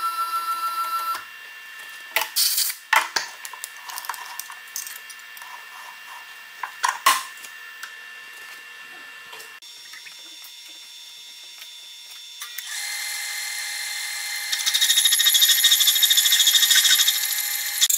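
Milling machine running a slitting saw through metal plate: a steady whine, quieter through the middle with a few sharp clinks, then louder for the last few seconds with a rapid, even pulsing as the saw cuts.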